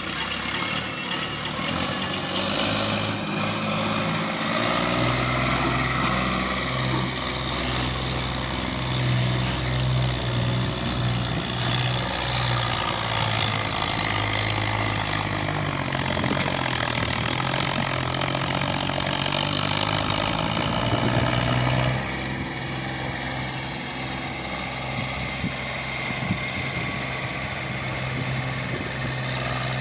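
Sonalika DI-750 Sikander tractor's diesel engine running steadily under load with a fully loaded trolley. The level drops at about 22 seconds in as the engine eases off.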